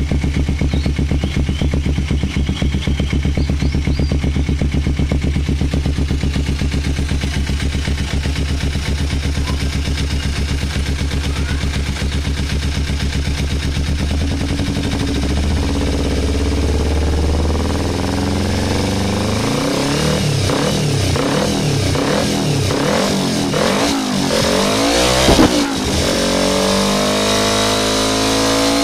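Kawasaki motorcycle engine running through an aftermarket racing exhaust. It idles steadily for about fifteen seconds, then is revved up and down in repeated throttle blips, with a single sharp crack among them.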